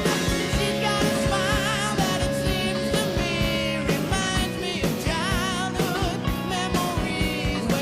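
Rock song with a sung vocal line, wavering in pitch with vibrato, over a steady drum beat.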